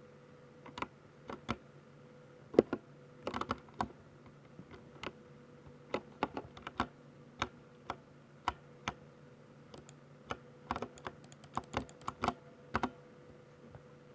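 Keys of a Ducky 60% mechanical keyboard with silver switches being typed on in irregular, uneven bursts. Isolated keystrokes come first, with quicker clusters of presses in the second half, over a faint steady hum.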